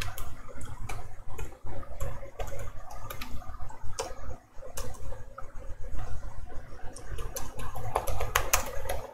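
Typing on a computer keyboard: irregular keystroke clicks, some in quick runs, over a steady low hum.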